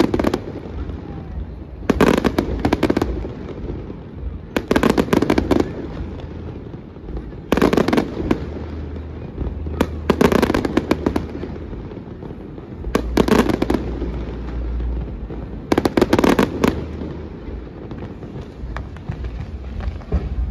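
Fireworks display: volleys of aerial shells bursting and crackling in dense clusters of rapid bangs, about every three seconds, over a steady low rumble. The volleys thin out near the end.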